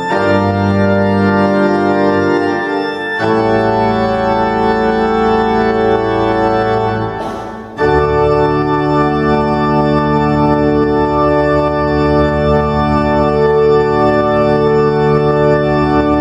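Cathedral pipe organ playing sustained full chords. The chord changes about three seconds in, and a final chord is sounded about eight seconds in and held.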